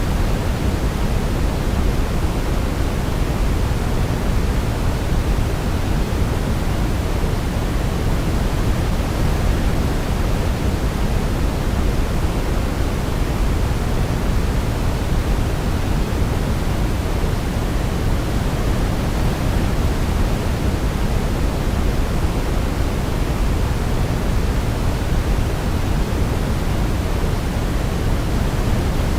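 Steady, unchanging sleep-aid noise, a deep hiss strongest in the bass, with no melody heard over it.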